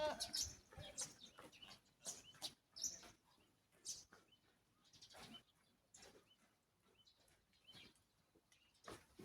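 Faint, scattered bird chirps between stretches of near silence.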